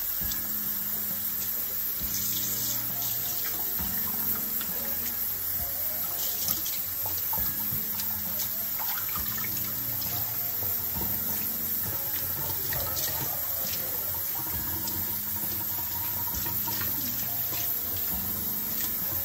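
Kitchen tap running steadily into a plastic bowl of water in a stainless steel sink, with splashing as pieces of red snapper are rinsed by hand.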